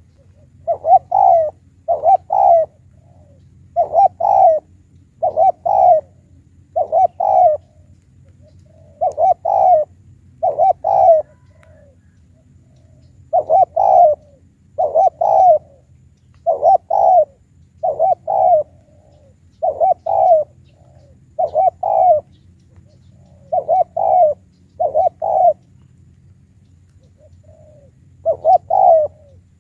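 Spotted dove cooing over and over in short phrases of two or three notes, a phrase every second or two.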